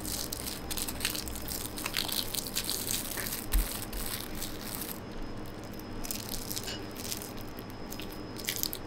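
Aluminium foil and paper crinkling and rustling in the hands as a small foil-wrapped apple pie is handled and wrapped, a steady run of small crackles, with a soft bump on the table about three and a half seconds in.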